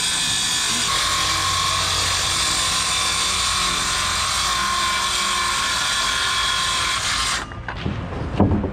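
Circular saw running steadily as it rips a straight cut through a sheet of plywood, stopping about seven seconds in, followed by a few knocks.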